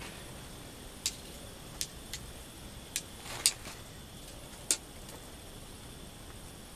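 A handful of irregular sharp clicks and taps over a steady outdoor hiss, the loudest about three and a half seconds in.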